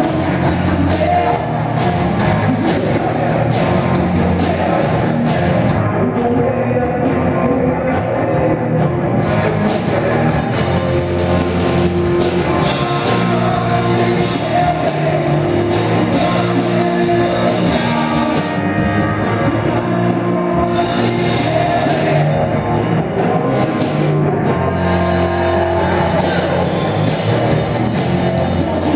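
Live rock band playing loud: electric guitar, bass guitar and drum kit, with a man singing lead.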